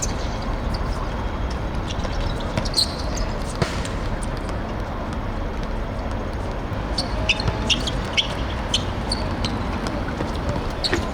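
Live sound of a seven-a-side football match on a hard pitch: scattered ball kicks, bounces and short shoe squeaks over a steady background noise, busiest about three seconds in and again from about seven seconds in.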